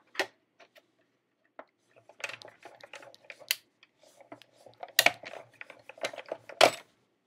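Hard plastic clacks and taps as clear acrylic die-cutting plates are handled and set down on a cutting mat, a scatter of sharp knocks with the loudest about five seconds in and near the end.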